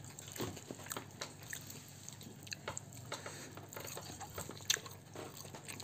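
Quiet eating sounds: chewing, with scattered small clicks and ticks as fingers pick at fried catfish and tofu on a plate, and one sharper click near the end.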